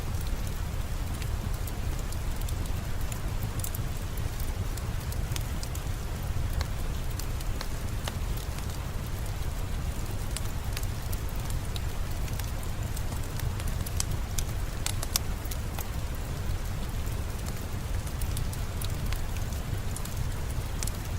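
Steady rainfall with a low rumble underneath, mixed with scattered sharp crackles and pops of a wood fire burning in a fireplace.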